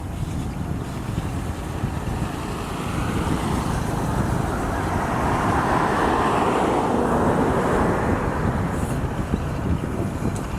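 A road vehicle passing, its noise building to a peak about six to seven seconds in and then fading, over a steady low rumble of wind and road noise.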